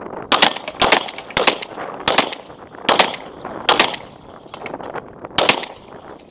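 Semi-automatic shotgun firing seven shots in quick succession, roughly half a second to a second apart, with a longer pause before the last.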